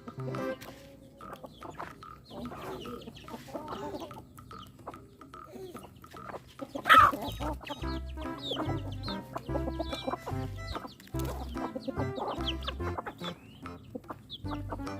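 Free-range chickens clucking and calling, with one loud call about seven seconds in, over background music with a steady low beat.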